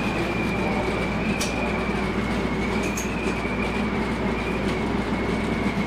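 Airport mobile-lounge shuttle running, heard from inside its passenger cabin: a steady low hum under a high whine that wavers slightly. Two brief clicks come about one and a half and three seconds in.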